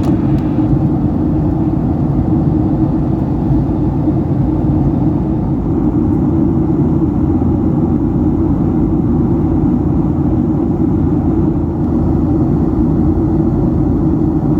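Steady low drone of a Boeing 757-300's passenger cabin in flight on descent: engine and airflow noise heard from a seat inside the cabin, even in level throughout.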